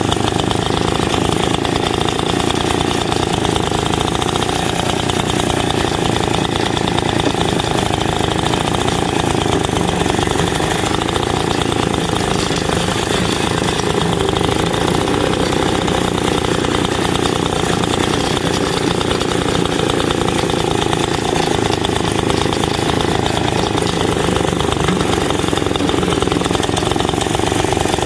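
1950s Greens roller lawn mower's small petrol engine running steadily at an even speed, with a fast, regular firing beat.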